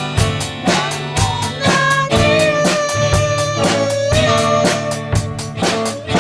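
Music with a steady drum-kit beat, about two strokes a second, under a lead instrument holding a long, slightly bending melody.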